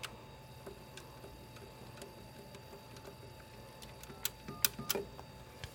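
Payphone keypad buttons pressed three times in quick succession about four seconds in, each a sharp click, some with a short beep: dialing 511. Before that there is only a faint steady background with an odd light tick.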